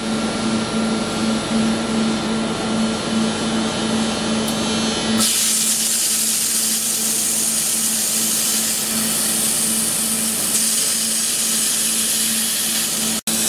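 Robotic laser welding cell at work, with a steady mechanical hum and a pulsing low tone. About five seconds in, a bright, even hiss comes in and holds. The sound drops out for an instant near the end.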